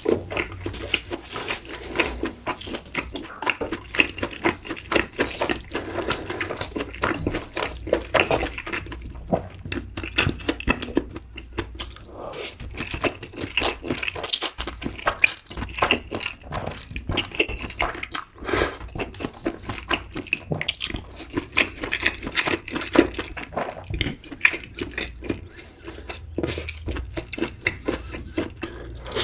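Close-miked wet chewing and mouth sounds of a person eating, a dense run of quick, irregular smacks and clicks.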